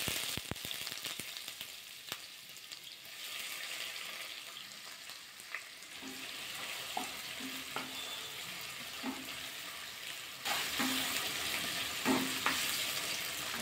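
Sliced onions sizzling as they fry in hot mustard oil in a nonstick kadai, with a wooden spatula knocking and scraping against the pan as they are stirred. The sizzling gets louder about ten seconds in.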